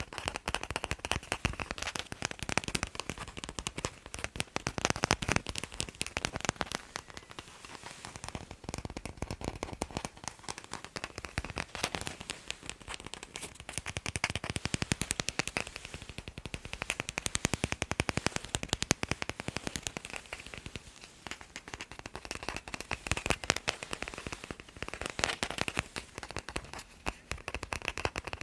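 Fast, dense tapping on a sports ball, many sharp taps a second with brief lulls and bursts.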